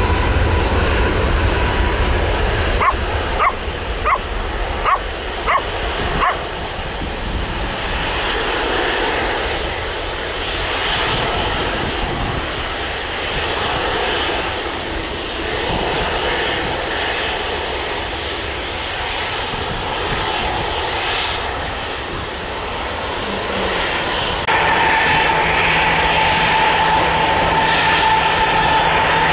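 Airliner jet engines running at the airport, a steady rumble. Early on there is a quick run of about seven short, sharp sounds. Near the end a louder steady engine whine sets in suddenly.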